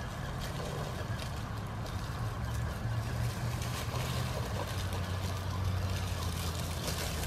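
HG P407 1/10 scale RC crawler driving over dry fallen leaves: faint crunching and rustling of leaves under its tyres over a low steady rumble.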